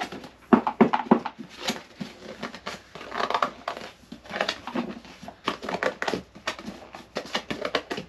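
Cardboard packaging being handled: irregular scraping, rustling and knocking as an item is worked out of a tight-fitting white cardboard box.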